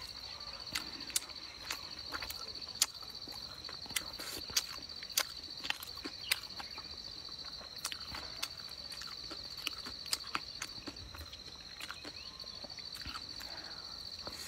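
Close, wet chewing and lip-smacking clicks from eating a soft, glutinous cake, coming irregularly, with a bigger bite near the end. Under them runs a steady high insect trill.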